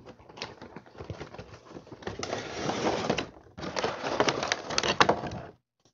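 Toy packaging being opened by hand: scattered clicks, then two stretches of dense crinkling and crackling of plastic and cardboard, starting about two seconds in and stopping abruptly near the end.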